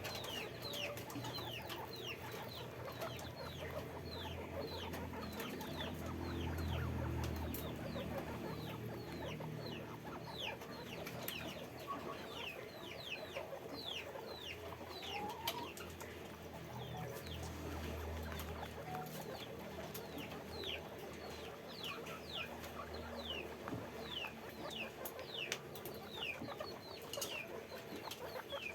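A herd of guinea pigs squeaking: many short, high chirps that fall in pitch, several a second, overlapping. A low hum swells up twice underneath.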